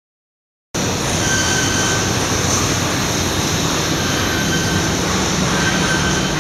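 EVA/PE foam splitting machine running as foam is fed through its rollers: a steady mechanical noise with a low hum and a faint high whine that comes and goes, starting abruptly about a second in.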